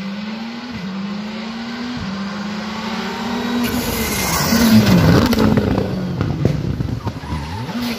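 Rally car coming up the stage flat out, its engine note climbing and dropping back with each upshift, passing loudest about five seconds in. After the pass it gives a few sharp cracks, and its engine note falls in steps as it slows for the junction ahead.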